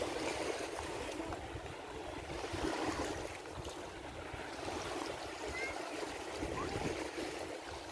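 Small waves of the Adriatic Sea washing gently onto a sandy shore, a steady soft surf, with faint voices of people on the beach in the background.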